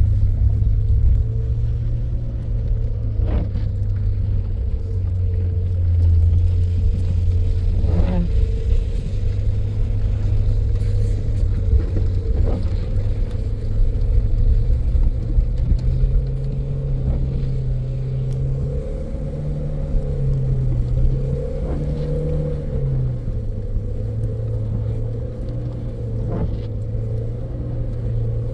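A motor running with a steady low hum, its pitch stepping up a little about halfway through and settling back a few seconds later, with a few faint clicks.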